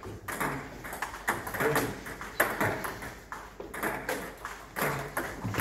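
Table tennis rally: a celluloid ball clicking off rubber bats and the table top in quick, irregular knocks, with the clicks of rallies at neighbouring tables mixed in. The knocks echo a little in the large hall.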